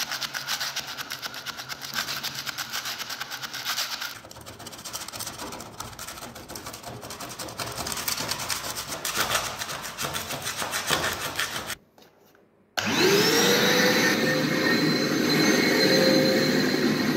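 Fast, rough scraping and rubbing of a hand tool over a bare concrete floor. After a brief break, a canister vacuum cleaner switches on, its motor whine rising and settling into a steady run.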